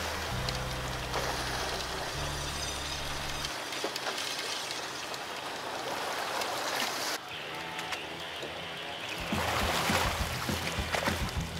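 Seawater rushing and splashing around a fishing boat, an even hiss broken by scattered knocks. Low background music plays under it for the first three seconds or so.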